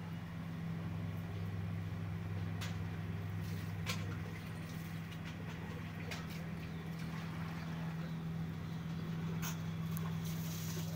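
Steady low mechanical hum from a running motor or engine, even and unchanging, with a few faint clicks.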